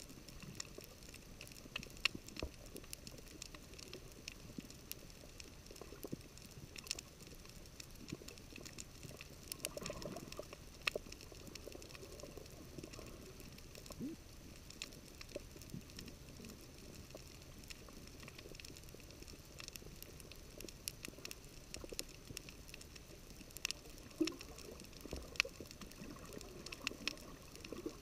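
Underwater coral reef soundscape picked up through a GoPro's waterproof housing: a steady hiss with irregular sharp clicks and crackles of snapping shrimp, plus a few brief low sounds.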